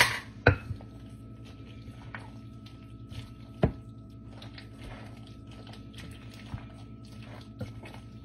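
Wooden spoon stirring macaroni, shredded chicken and cream cheese in a glass mixing bowl: wet squishing and scraping, with a few knocks of the spoon against the bowl, the loudest about half a second and three and a half seconds in.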